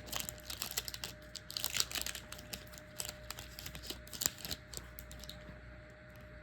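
A pack of trading cards being opened and the cards handled: a run of light clicks, scuffs and crinkles as the wrapper and cards are worked, stopping a little after five seconds in.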